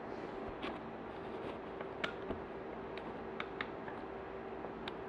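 A few faint, light clicks and taps of handling, scattered over a steady low hum.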